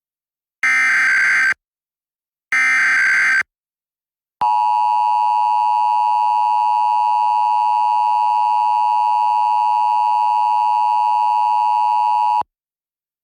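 Emergency Alert System SAME header: the last two of its three bursts of digital data tones, each about a second long with a second's gap, then the EAS two-tone attention signal held steadily for about eight seconds and cutting off abruptly. It marks the start of a Required Monthly Test alert.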